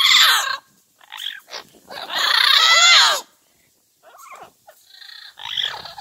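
Yellow-headed Amazon parrots calling. A loud harsh call ends about half a second in, followed by short calls. A longer loud call in the middle rises and falls in pitch, and softer calls come near the end.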